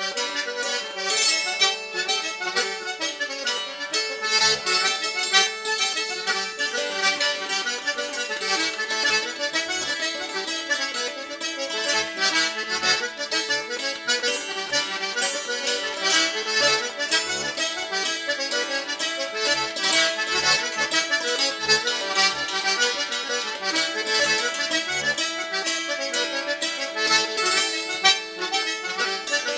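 Button accordion playing a traditional Irish dance tune: a quick, ornamented melody, with short low bass notes coming in about four seconds in.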